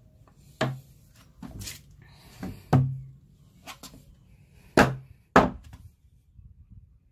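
Claw hammer striking a flathead screwdriver and a scrap-wood impact block to knock apart nailed oak pieces of a dresser top: about six sharp knocks, unevenly spaced, the two loudest about two-thirds of the way through, half a second apart.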